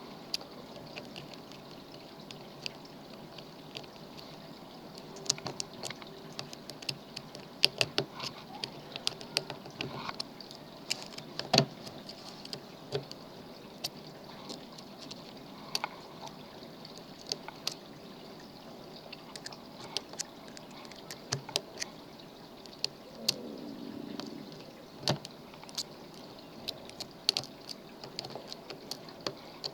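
Irregular small metallic clicks and scrapes of a lock pick and tension wrench working a pin-tumbler lock, the pins clicking as they set, over a faint steady hiss.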